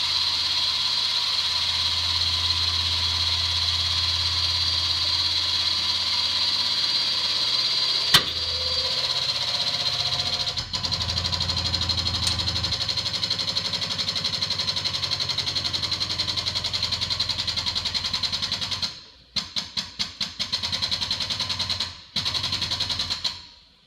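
Air-powered hydraulic pump of a frame-straightening rack running steadily with a fast pulsing chatter as the ram pulls a kinked frame rail out. A single sharp crack about eight seconds in, and near the end the pump is run in several short bursts before it stops.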